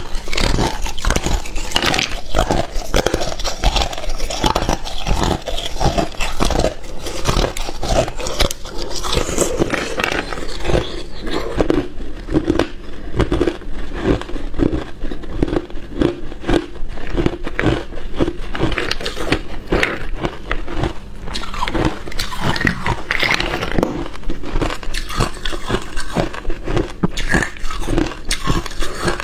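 Clear ice cubes being bitten off a joined slab and crunched between the teeth, close to the microphone: dense cracking and crunching, settling in the middle into a steady chewing rhythm of about two crunches a second.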